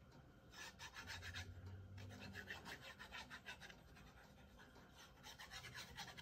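Faint scratchy rubbing of a glue bottle's applicator tip drawn quickly back and forth across a paper paint-chip strip. It comes in two spells, a longer one starting about half a second in and a shorter one near the end.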